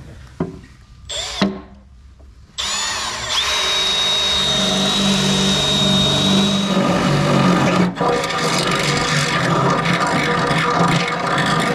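Cordless drill boring a hole through the side of a race car seat. A few light knocks come first, then about two and a half seconds in the drill starts and runs steadily under load, with a high whine for a few seconds and a brief dip near eight seconds.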